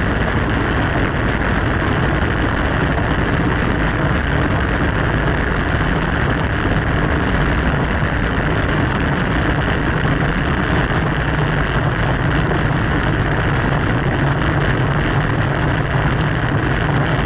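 Steady rushing wind and road noise on the microphone of a camera riding along on a bicycle at race speed.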